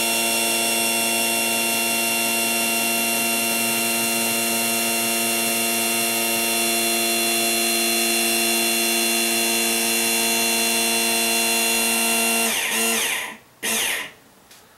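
12-volt Firgelli linear actuator's electric motor running steadily with a whine as it retracts a transfer-table drawer. Near the end the whine drops in pitch and stops, followed by a brief burst of noise.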